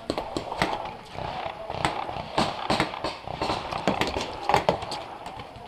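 Paintball markers firing during a game: a string of sharp, irregular pops, several a second, with paintballs smacking into bunkers.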